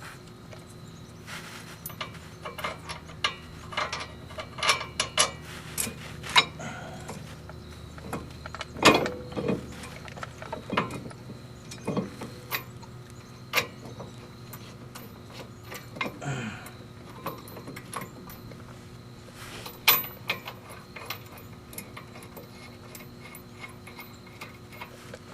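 Scattered, irregular metallic clinks and knocks of hand tools and parts being handled during work on a car's wheel hub, over a faint steady hum.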